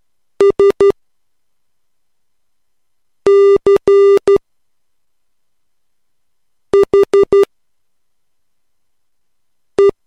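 Morse code practice tone: four characters sent about three seconds apart, each a quick run of beeps at one steady pitch. The first is three dots (S), the second mixes longer dashes with dots, the third is four dots (H) and the last a single dot (E).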